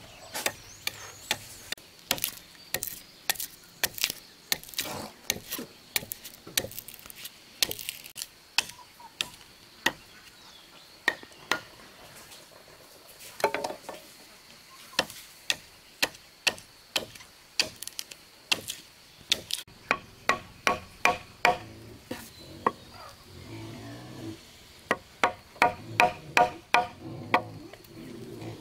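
A blade chopping into wooden blocks, sharp strikes coming one or two a second. From about two-thirds of the way through the strikes come faster, each with a short ringing knock.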